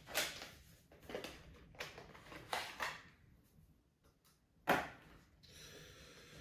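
Light clicks and knocks of small computer parts being handled, about five spread out, the sharpest about three-quarters of the way through.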